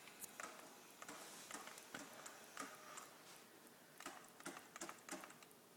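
Near silence in a quiet room, broken by faint, irregular little clicks and ticks.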